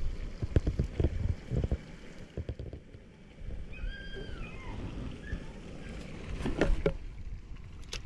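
Low rumble of wind on the microphone, with scattered clicks and knocks from handling the fishing pliers and the prawn. About four seconds in comes a short, arching chirp.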